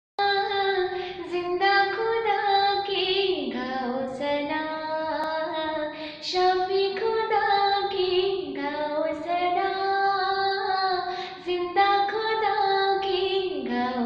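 A woman singing a Hindi Christian worship song solo, in long held notes that slide between pitches, with short breaks between phrases.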